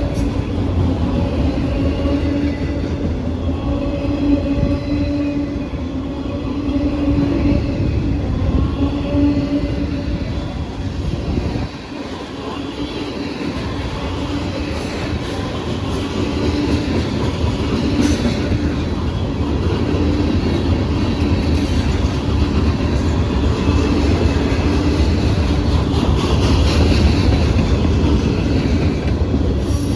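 Norfolk Southern freight train rolling past at close range: steel wheels running on the rails with a continuous rumble and clickety-clack over the rail joints, and a low tone wavering in and out.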